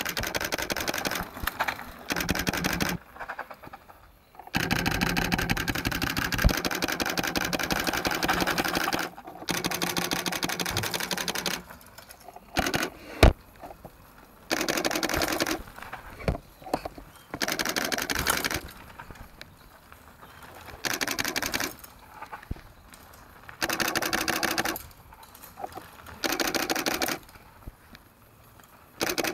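Mountain bike rear freehub ticking in a rapid ratcheting buzz while coasting, in repeated bursts of one to four seconds that start and stop abruptly, with quieter gaps between. A single sharp knock comes about thirteen seconds in.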